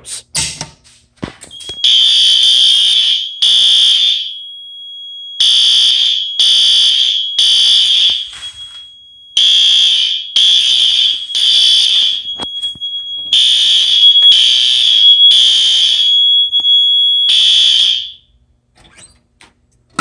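System Sensor SpectrAlert Advance horn strobe sounding a fire alarm in the temporal-three pattern, groups of three loud horn blasts with a pause between groups. A few clicks come first as the Fire-Lite BG-12 pull station is pulled. The horn stops about two seconds before the end when the alarm is silenced at the panel.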